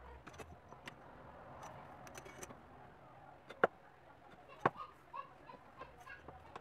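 Leather strips and a utility knife being handled on a cutting mat: light scrapes and small taps, with two sharper clicks about a second apart in the middle.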